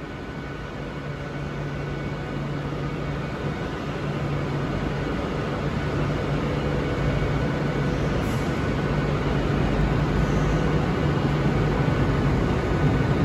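Great Western Railway Class 802 bi-mode train drawing slowly into a terminal platform, its running noise growing steadily louder as it approaches.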